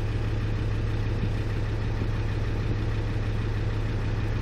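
Land Rover Discovery 2's Td5 2.5-litre five-cylinder turbo-diesel idling steadily at about 760 rpm, still warming up after a cold start, heard from inside the cabin.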